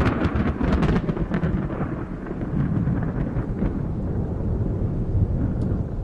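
Thunder in a storm: a crackling clap at the start, then a long low rumble that slowly eases.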